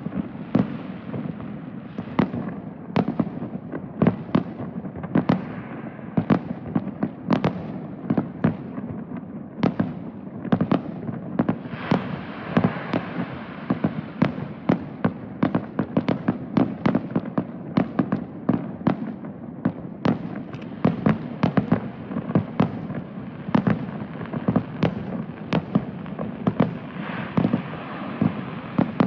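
Aerial fireworks display in a continuous barrage: sharp bangs of bursting shells follow one another several times a second, over a steady crackle that swells twice.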